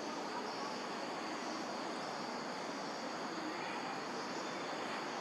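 Steady outdoor background noise: an even rushing hiss with no distinct sounds standing out.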